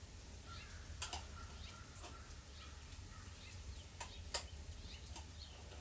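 Scraping and tapping at a can of tomato paste to work the stubborn paste out into the pot: a handful of sharp taps, the loudest about four seconds in.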